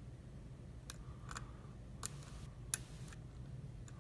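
A lock pick working the pin stacks of a Carl F euro cylinder under tension: about five faint, sharp metallic clicks at uneven intervals, with a brief soft scrape just after the middle.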